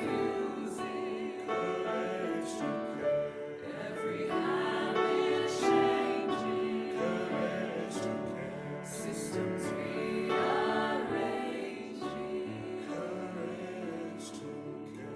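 A choir singing in harmony, holding long chords, with the sound easing off over the last few seconds.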